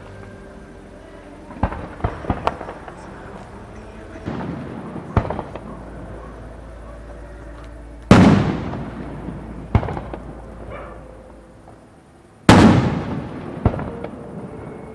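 Fireworks display: a few lighter pops and cracks in the first seconds, then two heavy shell bursts, one about halfway through and one near the end, each with a long rolling echo and followed by a sharp crack.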